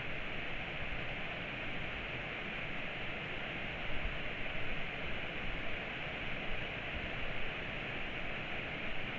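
Torrential rain pouring down steadily, a dense even hiss with no let-up.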